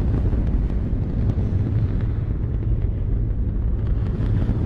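Saturn V S-IC first stage's F-1 rocket engines firing in a static test: a steady, loud, deep rumble of exhaust noise with occasional crackles.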